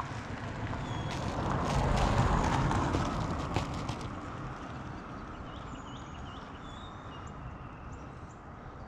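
Car backing up a short way, with crackling clicks from the tyres rolling over the road surface; it is loudest about two seconds in and then settles to a steady low rumble. Faint bird chirps come in about six seconds in.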